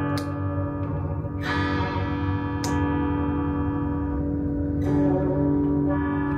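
Electric guitar, a Firebird-style kit guitar, played through an amplifier: chords struck about four times, each left to ring on.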